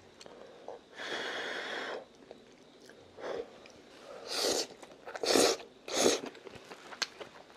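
A person slurping and chewing thick stir-fried udon noodles. There is a long noisy draw about a second in, then several short slurps.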